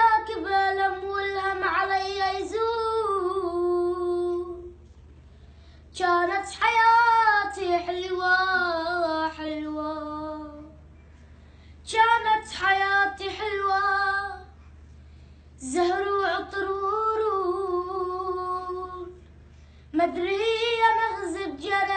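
A boy singing an Arabic song unaccompanied, in five phrases of wavering, ornamented notes with short pauses for breath between them.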